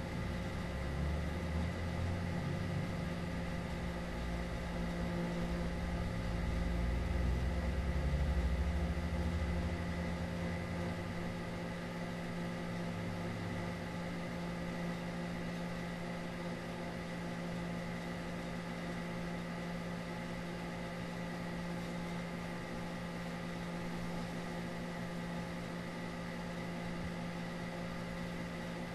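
A steady machine-like hum and whir with several held tones, and a low rumble underneath for about the first half that then fades out.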